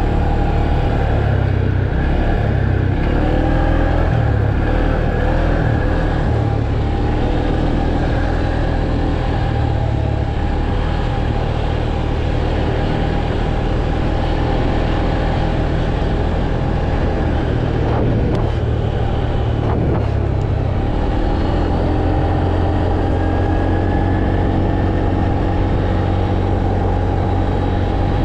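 Tracker ATV engine running under way as it is ridden, its pitch shifting with the throttle in the first several seconds and then holding steadier, over a heavy low rumble. Two short knocks come about two-thirds of the way through.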